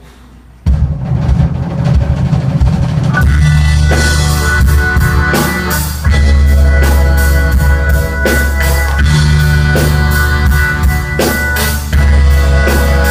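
Band music with a drum kit and heavy bass kicks in suddenly under a second in. Regular drum hits run through it, and a steady higher note joins about three seconds in.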